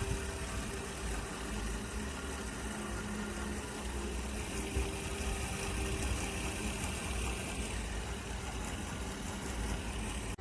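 Small air purifier's fan running steadily: an even rush of air over a low motor hum.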